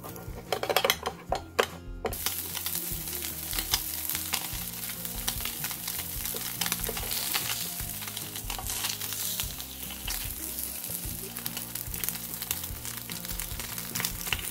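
A metal spatula clicking and scraping against a rectangular egg pan for about two seconds, then slices of Spam sizzling and crackling steadily in an oiled frying pan, with a few light taps as they are turned.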